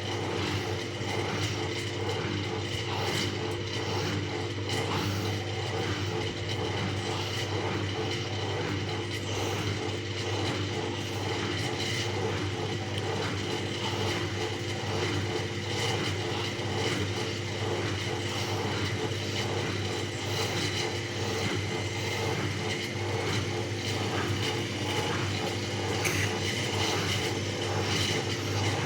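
Bauknecht WAS 1400 washing machine running at a steady speed: a constant motor hum with a higher steady whine over it, unchanging throughout.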